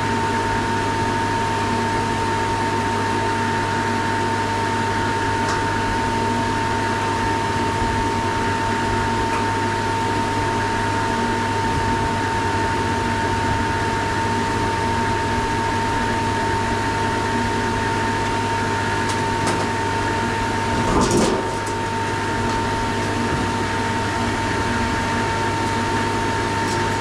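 Refrigerant recovery machine running steadily, a constant motor drone with a steady whine on top, as it pulls refrigerant out of the chiller into a recovery tank. About two-thirds of the way through, a brief clatter as the unit's sheet-metal side panel is taken off.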